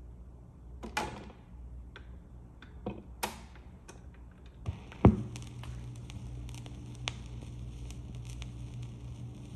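Panasonic SD-85 automatic record changer cycling: a few clicks and knocks of the mechanism as a record drops onto the platter, then a louder thump about five seconds in as the stylus sets down. After the thump comes a steady low hum with faint sparse crackles of the lead-in groove through the speakers.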